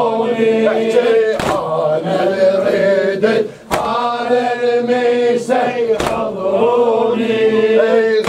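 Male voices chanting an Arabic Shia latmiya, a rhythmic mourning lament. The mourners strike their chests in unison three times, one sharp slap about every two seconds.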